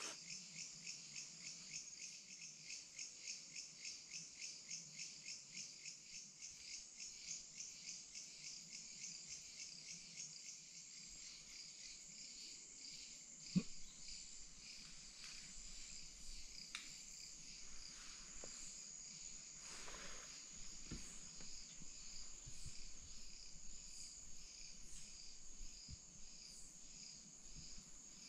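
Night insects, crickets or similar, chirping high in steady rhythmic pulses, about two to three a second at first and then merging into a more even trill. One sharp click sounds about halfway through.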